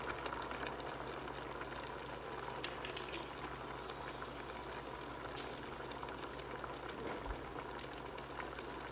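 Steak stew with sliced peppers and carrots simmering in a large aluminium pot, a steady bubbling hiss with a few faint ticks.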